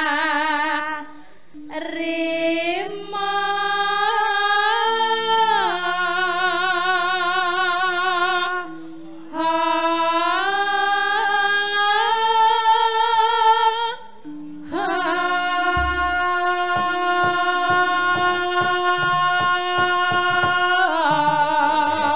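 Two women singing a Javanese langgam duet in long phrases with held, wavering notes, broken by three short pauses, over gamelan accompaniment; low drum strokes come in during the last phrase.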